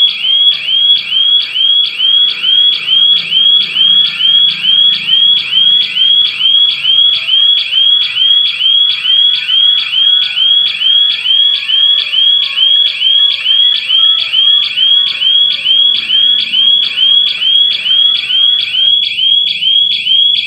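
Burglar alarm siren of a GSM security system sounding without a break: a high-pitched electronic whoop repeating about two and a half times a second. The alarm has been triggered by a detected security breach and keeps sounding while the system dials its authorized numbers.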